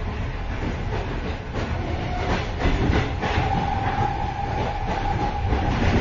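Moving train heard from the vestibule between carriages: a steady low rumble with irregular metallic rattling and clatter. A thin, steady high whine joins in about two seconds in and fades near the end.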